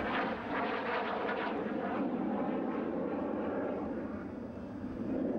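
Fouga CM.170 Magister jet trainer flying overhead, its twin Turbomeca Marboré turbojets making a steady rushing jet noise that dips briefly near the end.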